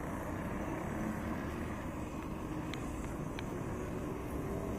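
Road traffic on a busy city street: a steady rush of passing cars. Two brief high chirps sound about halfway through.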